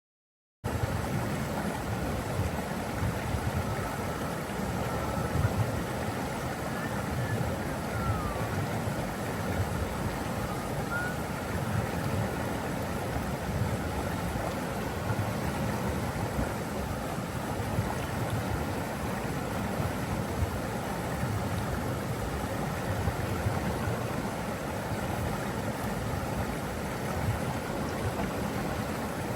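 Steady rushing of flowing water, deep and even, starting abruptly about half a second in.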